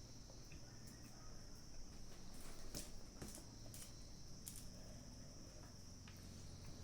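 Faint, steady high-pitched trill of insects such as crickets, with a few short clicks from eating in the middle.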